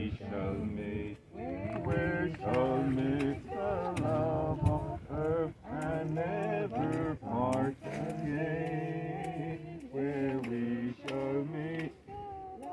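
Voices singing a slow hymn in drawn-out phrases, with a steady low tone held underneath.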